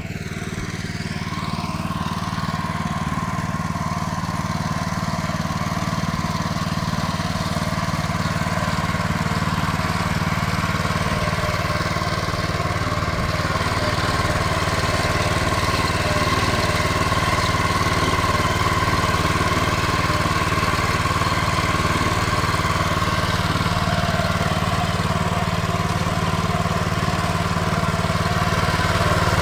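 Engine of a Belarus 09N walk-behind tractor running steadily under load as it pulls a plough through the soil. It grows gradually louder over the stretch.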